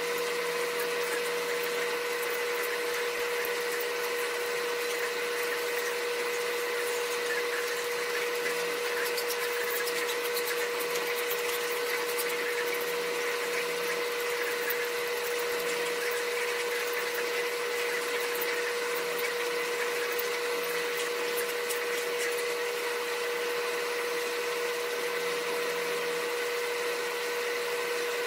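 A steady machine drone carrying a constant mid-pitched whine, unchanging throughout.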